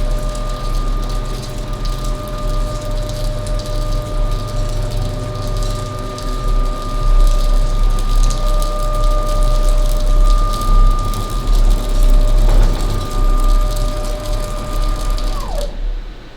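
CNC router axis drive motors whining at a steady high pitch during a long rapid jog move at the machine's newly raised fast-jog speed, over a low hum. Near the end the whine falls in pitch as the move slows to a stop, then rises again as the next move starts.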